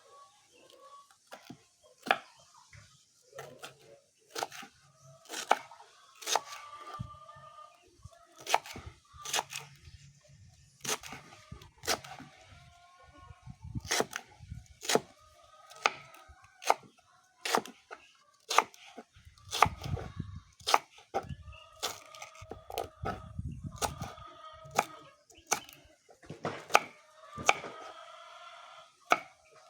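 Irregular sharp chops of a knife through matoke (cooking banana) peelings onto a wooden surface, about one or two a second, with chickens clucking throughout.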